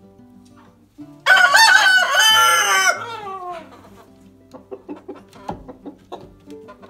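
Silver Laced Wyandotte rooster crowing once, a loud cock-a-doodle-doo of about two seconds that slides down in pitch at its end, starting a little over a second in. Short soft clucks follow.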